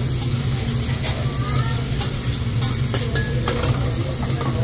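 Fried rice and diced vegetables sizzling on a teppanyaki steel griddle as a metal spatula scrapes and stirs them, with a few sharp metal taps about three seconds in. A steady low hum runs underneath.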